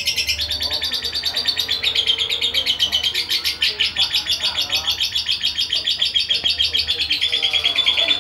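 Young lovebird, about two and a half months old, chattering: a continuous rapid stream of high-pitched chirps, about ten a second.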